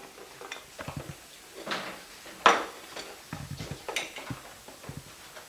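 A spoon clinking and scraping against a bowl while a dish is stirred, a handful of separate knocks with the loudest about two and a half seconds in.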